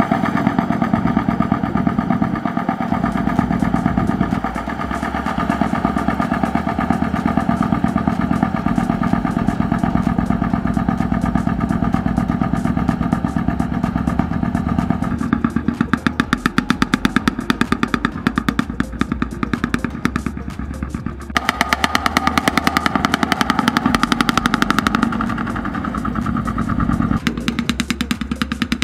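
Engine of a homemade farm truck running, with a fast, even beat of firing pulses. Its sound changes abruptly a few times, about halfway through and again near the end.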